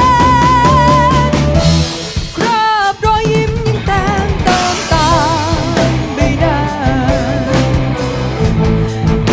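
Teenage rock band playing live: a female lead singer holds a long note that ends in vibrato, then after a brief break about two seconds in sings on over electric guitars, bass, keyboard and drum kit.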